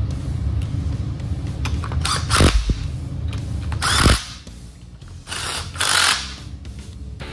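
A tool fastening bolts on a salvaged transmission-gear assembly, in four short bursts, with a knock in the first two.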